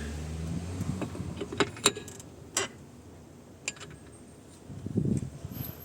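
A low machine hum dying away at the start, then scattered sharp metallic clicks and light knocks, as of parts being handled on the sharpener, with a couple of dull thumps near the end.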